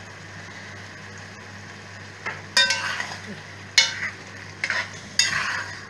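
A long metal spoon stirs and scrapes flaked tin mackerel with onions and tomato in a metal pot over a faint steady sizzle. From about two seconds in, the spoon scrapes and knocks against the pot about five times.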